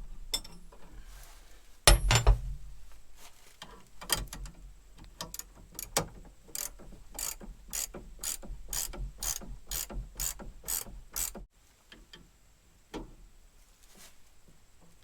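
Ratchet wrench tightening a belt tensioner on a combine: a metal clank about two seconds in, then a steady run of ratchet clicks, about three a second, that stops a few seconds before the end.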